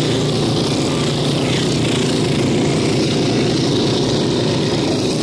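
Several stayer pacing motorcycles running steadily at race speed around a velodrome track, one passing close by.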